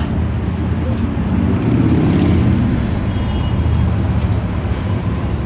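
City street traffic rumble, swelling louder for a moment as a vehicle passes about two seconds in.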